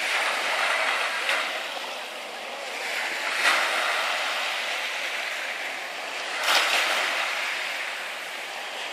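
Small waves lapping and washing on the shore, a steady hiss that swells every few seconds with a sharper splash-like wash.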